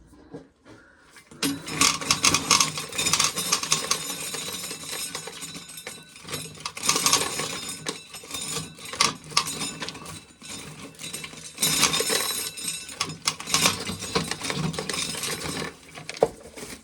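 Hand-cranked corn sheller being turned, its mechanism and the shelled kernels making a dense, rattling clatter. The clatter starts about a second and a half in and swells and eases several times.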